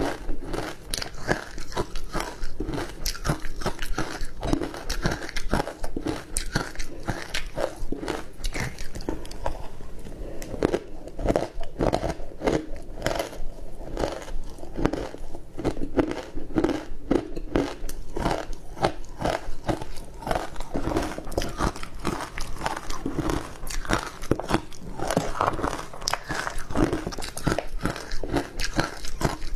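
Ice coated in matcha powder being bitten and chewed close to the microphone: a dense run of crisp crunches, turning duller from about ten seconds in until near eighteen seconds.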